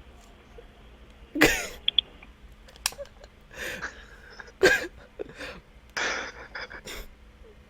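A string of short, breathy, cough-like bursts from a person close to the microphone, the loudest about a second and a half in, with quieter ones following every second or so.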